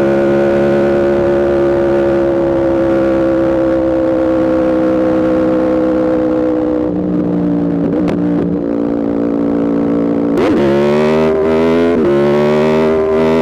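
2021 Aprilia RSV4 V4 engine with an aftermarket Spark exhaust, ridden on the road: holding steady revs that slowly fall, dropping off about seven seconds in, then accelerating hard about ten seconds in, the pitch climbing with brief breaks for upshifts.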